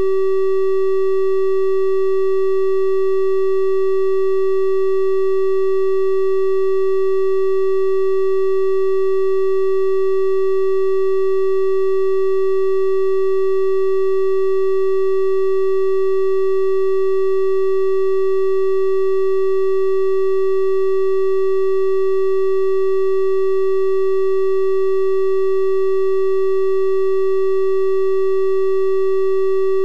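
Steady 384 Hz triangle-wave test tone, a pure electronic hum with faint higher overtones, unchanging throughout.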